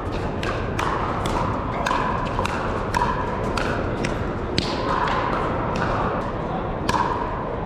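Pickleball paddles striking a plastic pickleball: sharp hollow pocks about every half-second, each with a short ringing echo, from this rally and the neighbouring courts, over a steady hall murmur.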